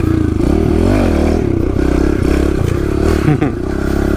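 Kawasaki KLX110L pit bike's small single-cylinder four-stroke engine running under way, its pitch rising and falling again and again as the throttle is opened and eased off, with a brief dip and a short clatter about three seconds in.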